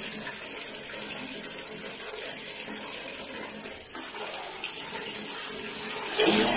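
Water running from a tap into a plastic bucket, a steady splashing rush that gets noticeably louder about six seconds in.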